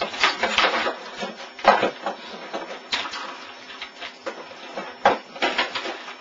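A computer keyboard clattering as it is hammered and knocked about on a desk: a run of sharp, irregular clacks and knocks.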